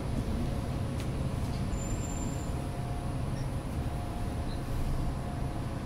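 Steady low rumble of a city bus heard from inside the passenger cabin as it runs between stops, with a faint steady whine above it.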